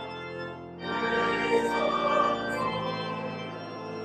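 Church organ playing held chords; the sound thins briefly, then comes back fuller and louder about a second in.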